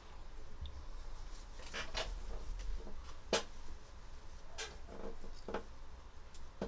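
Quiet room tone with a low hum and a few soft, scattered clicks.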